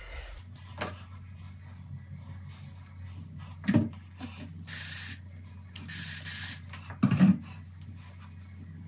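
Two sprays from a hand spray bottle misting hair, each a hiss under a second long, a little over a second apart. Before them comes a thump, and after them a louder double thump.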